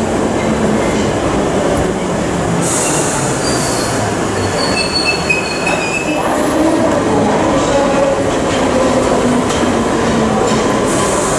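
London Underground Piccadilly line train running along a tube platform: a steady rumble of wheels on rail. From about a third of the way in to just past the middle there is a high-pitched wheel squeal. Short hisses come about three seconds in and again near the end.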